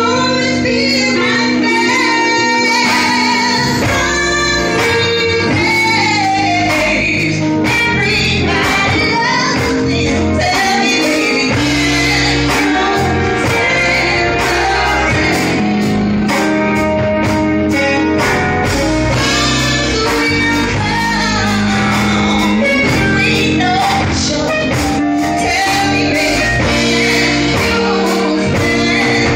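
A woman singing live into a microphone over steady musical accompaniment with a regular beat.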